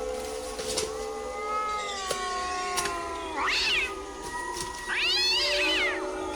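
Two cries from a small animal, each rising and then falling in pitch, about three and a half and five seconds in; the second is longer and louder.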